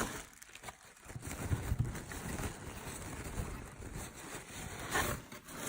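Plastic protective wrapping rustling and crinkling as a camera body is unwrapped by hand, with small irregular handling clicks.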